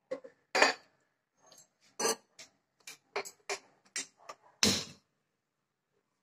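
Kitchen utensils being handled and set down at the stove: an irregular string of sharp clicks and knocks, loudest about half a second in and again near the end.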